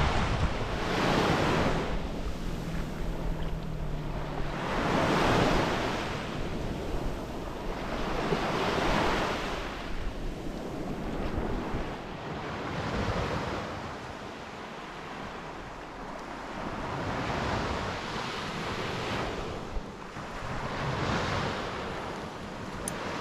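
Surf breaking on the shore, with waves surging in and washing back about every four seconds. Wind rumbles on the microphone, strongest near the start.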